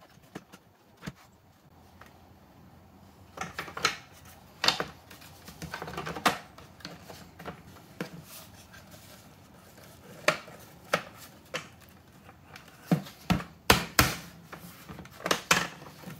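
Plastic housing parts of a cordless leaf blower being handled and fitted together by hand: irregular clicks, knocks and clacks of hard plastic. The loudest clacks come in a quick cluster about three-quarters of the way through.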